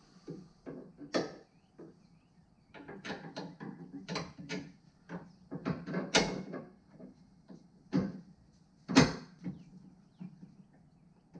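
Metal hand tools clanking and clicking as they are handled and set down: a string of irregular knocks, with the sharpest strike about nine seconds in.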